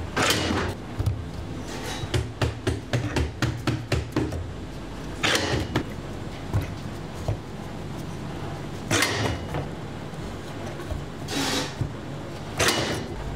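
Hand-operated commercial tomato slicer in use. Five sliding strokes as the pusher head drives tomatoes through the parallel blades, with a quick run of clicks and knocks from the metal slicer early on.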